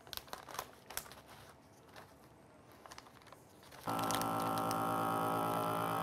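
Plastic bag rustling and crinkling faintly as it is handled. About four seconds in, a vacuum sealer's pump starts and runs with a steady hum as it draws the air out of the bag around the steak.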